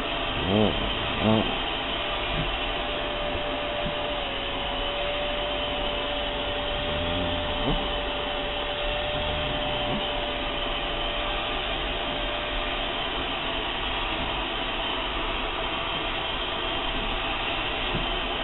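Vacuum cleaner running steadily with a constant whine as its hose is drawn through a dog's thick coat. Two brief voice-like sounds come near the start.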